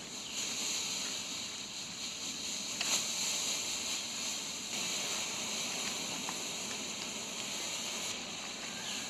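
Bright Star BS2602 pull-string colour smoke grenades hissing steadily as they burn and pour out smoke, with one short sharp tick about three seconds in.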